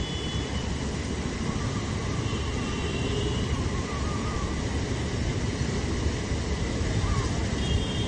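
Street traffic: a steady rumble of vehicles with faint, brief higher tones over it.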